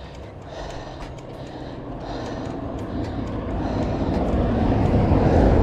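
A car approaching and passing close by, its engine and tyre noise growing steadily louder to a peak near the end.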